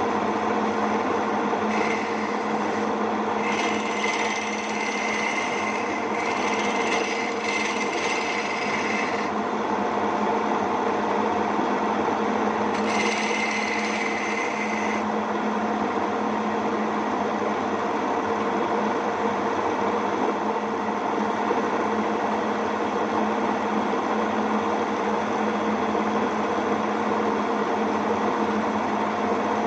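Homemade wood lathe's electric motor running steadily while a wooden popper lure blank is turned. A higher-pitched scraping whine joins it in spells, from about two to nine seconds in and again briefly a few seconds later, as the cutting tool works the spinning wood.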